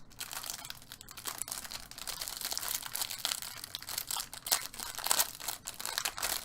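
Trading-card pack wrappers crinkling and being torn open, in dense, irregular crackles while the cards are handled.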